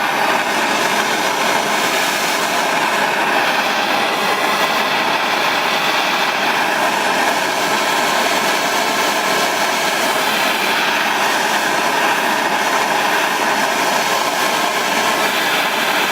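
Handheld gas torch burning steadily, heating the metal around a broken frame-rail bolt to make it easier to extract.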